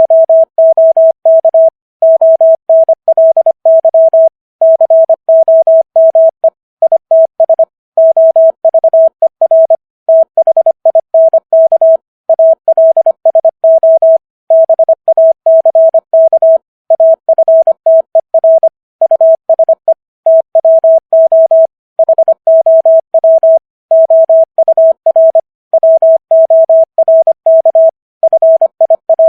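Morse code sent at 25 words per minute as a single-pitch beep keyed rapidly on and off in dots and dashes, spelling out common English words with short gaps between them.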